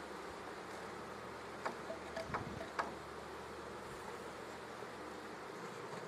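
Honeybee colony humming steadily around an open brood box, with a few light knocks a little before and after two seconds in.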